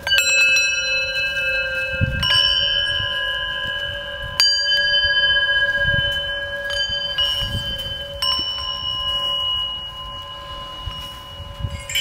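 Hanging metal bells struck about five times, each strike ringing on in long, overlapping steady tones at several pitches that slowly fade.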